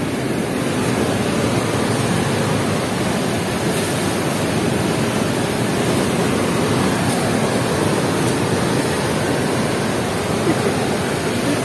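Steady rush of water pouring through the sluice gates of a river weir.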